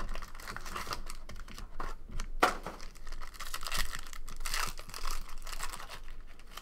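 Foil wrapper of a trading-card pack crinkling and tearing as it is pulled open by hand, with a sharp crackle about two and a half seconds in.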